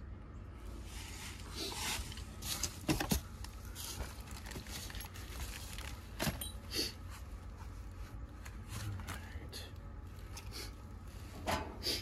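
Scattered handling noises: a plastic bag rustling and several sharp clicks and knocks of copper fittings and tools, over a steady low rumble.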